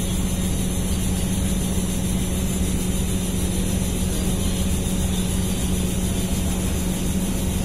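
Steady drone of a waiting DEMU's idling diesel engine, a constant low hum that does not change.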